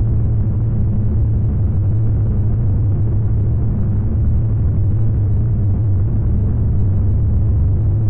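A steady low rumble with a constant deep hum underneath, unchanging throughout.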